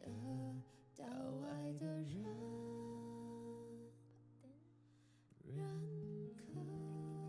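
Background music from a Mandarin pop ballad: guitar and long held notes, with no sung lyrics, dipping briefly about a second in and again midway.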